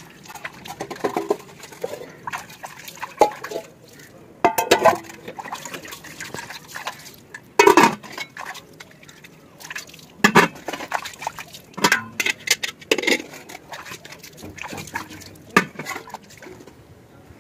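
Hands splashing and sloshing water in a large steel pot while washing steel dishes, with irregular clinks and clanks of metal pots, bowls and lids knocking together.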